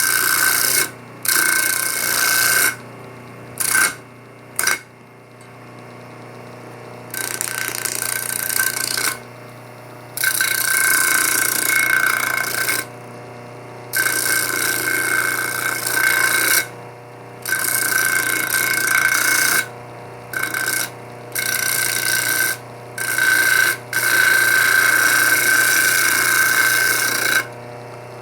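A knife blade being ground on a homemade bench grinder driven by a washing-machine motor, in repeated passes of a few seconds each with a rasping, ringing sound. Between the passes only the motor's steady hum is heard.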